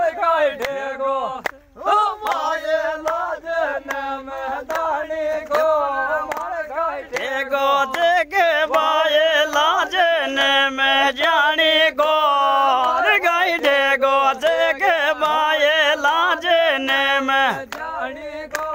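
Unaccompanied singing of a Gurjar rasiya folk song: voices in repeated chant-like phrases with wavering held notes, no instruments.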